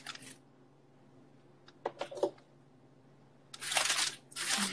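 Roasted cauliflower being spooned into a blender jar: a few light clicks and knocks about two seconds in, then about a second of scraping and rustling near the end as the spoon works the pieces.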